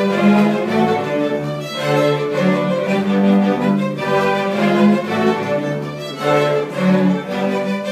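String orchestra playing a gato, an Argentine folk dance, with violins carrying the melody over a pulsing cello and bass line.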